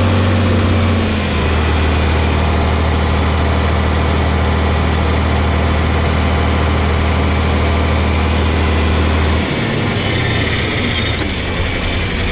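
A heavy engine running steadily with a deep hum. Its pitch drops slightly about a second in, and its deep hum cuts out about nine seconds in, leaving a lighter running noise.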